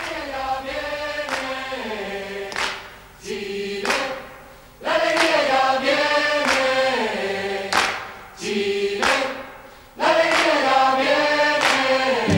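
A choir singing in phrases a couple of seconds long, with short breaks between them.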